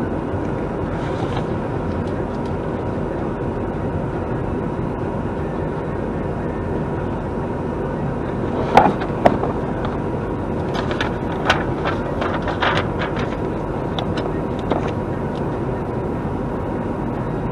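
Steady running noise of a vehicle heard from inside the cab, with a faint steady hum. About halfway through come two sharp knocks, followed by a scatter of lighter clicks and rattles.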